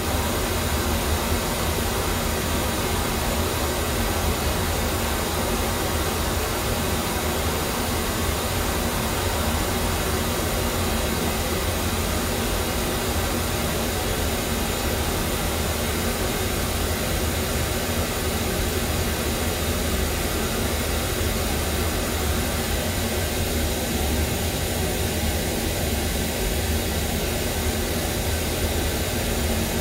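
Pink noise played through a sound system as a test signal for tuning the room's EQ: a steady, even hiss with a heavy low end. In the second half the middle around 1 kHz thins a little as those graphic-EQ bands are pulled down.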